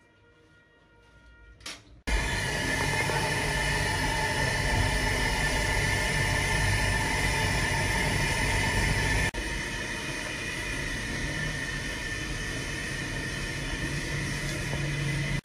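Steady roaring rumble of the gas burner firing under a large pulao cauldron. It cuts in abruptly about two seconds in after near silence, and drops a little in level about nine seconds in.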